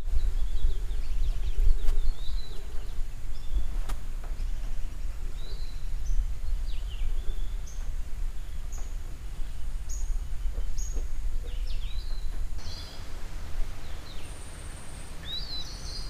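Outdoor ambience: a steady low rumble of wind on the microphone, with birds chirping on and off. There is a single sharp click about four seconds in.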